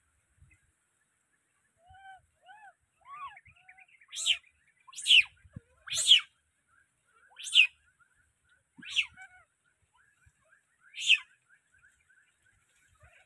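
Baby monkey crying: a few soft arched cries, then six loud shrill calls that sweep down in pitch, spaced one to two seconds apart.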